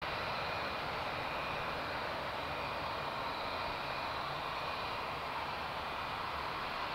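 Jet airliner engines running steadily: an even rushing noise with a faint high whine over it.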